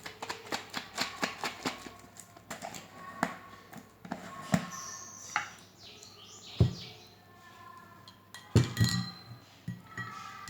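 Quick clicks and light knocks of a container of homemade syrup being handled, thick at first and then sparser, with a few short ringing clinks and one heavier knock near the end.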